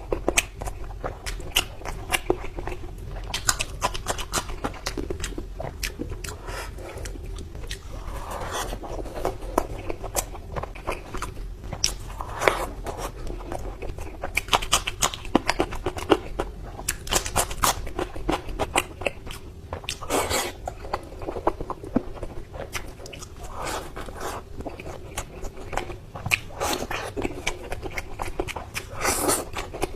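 Close-miked eating sounds: repeated biting, crunching and chewing of food, with many sharp clicks and short crunches throughout.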